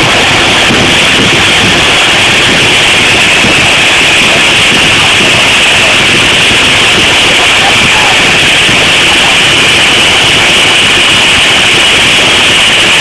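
Stadium crowd noise at a football game: a loud, steady, unbroken din with no pauses.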